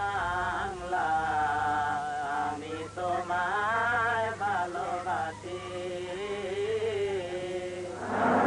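A single voice singing a slow melody in long, wavering held notes over a steady low drone. A louder, fuller chant of voices comes in near the end.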